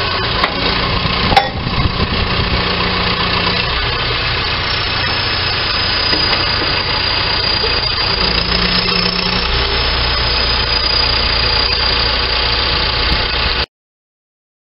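John Deere backhoe's diesel engine running steadily with its KENT KF9 hydraulic breaker stopped, after a loud sharp knock about a second and a half in. The sound cuts off suddenly near the end.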